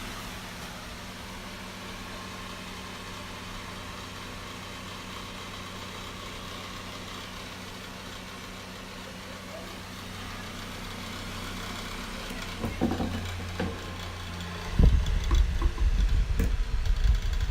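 Westpointe high-velocity fan running, a steady motor hum under rushing air. About three-quarters of the way in, loud irregular low knocking and rattling starts. The owner says the fan's bearings are bad.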